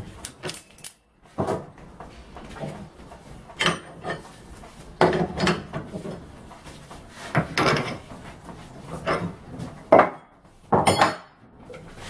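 Metal hand tools clanking and scraping against a Golf MK4 power-steering rack as its inner tie rods are taken off: a string of separate metallic knocks and clinks, about one every second or two.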